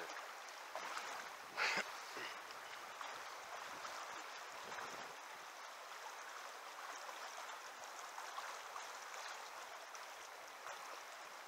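Shallow river current running steadily over riffles, an even rushing noise. About two seconds in, a brief louder rush stands out.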